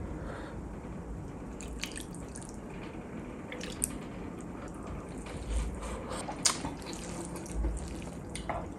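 Spicy gravy poured from a glass bowl onto white rice, dripping and splattering, with scattered small clicks and taps. Near the end, fingers squelch as they mix the wet rice.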